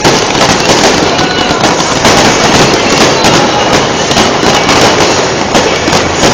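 A fireworks display going off in a dense, continuous barrage of loud bangs and crackling.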